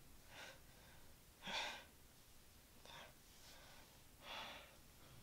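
A man's heavy, strained breaths, about four, each a short airy rush, the strongest about one and a half seconds in: the laboured breathing of someone in pain from a head wound.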